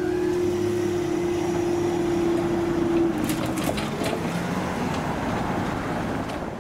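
A train passing on the line at the level crossing: a steady whine over continuous rolling noise, with the whine cutting off about three seconds in and a few sharp clicks just after.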